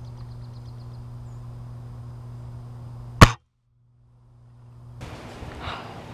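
A single gunshot, sharp and very loud, about three seconds in, taken at the shooter's position while hunting squirrels. It is followed by about a second of dead silence as the recording cuts out, over an otherwise steady low hum.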